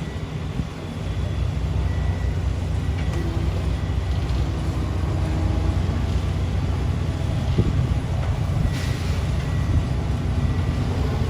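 Heavy diesel construction machinery running steadily, a continuous low rumble.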